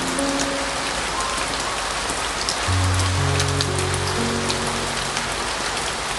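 Heavy rain falling steadily, with single drops ticking through the hiss, mixed with slow piano music of long held low notes; a deeper chord comes in about three seconds in.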